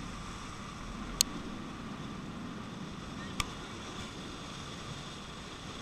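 Steady rushing noise of a bicycle riding along a paved road, wind and tyre noise on the bike-mounted microphone, with two sharp clicks or knocks about a second in and again two seconds later.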